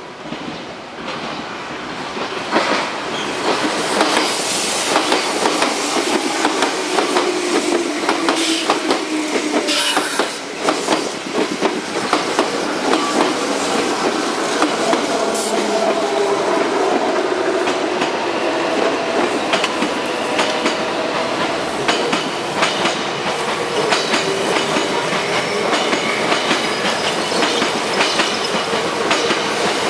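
A train passing at close range, its wheels clattering over rail joints in a long run of clicks, with a whine that glides up and down in pitch. It grows louder over the first few seconds, then runs on steadily.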